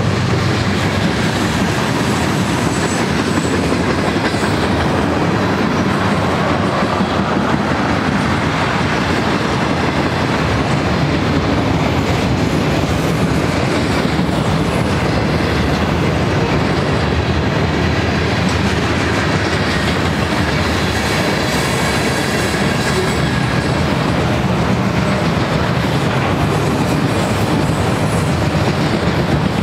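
Manifest freight train of mixed cars (tank cars, covered hoppers, boxcars, autoracks) rolling steadily past: the even rumble and clickety-clack of steel wheels on the rails.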